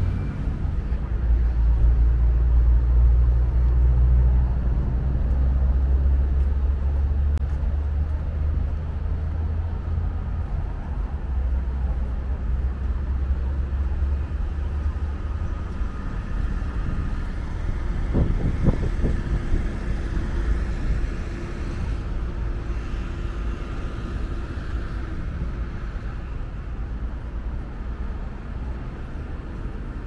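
Wind rumbling on the microphone, heaviest in the first half, over steady road traffic; a vehicle passes a little past the middle.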